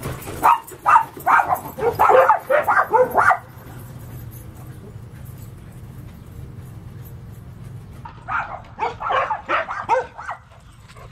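A dog barking and yipping in a quick run of short calls lasting about three seconds, then another run of barks about eight seconds in.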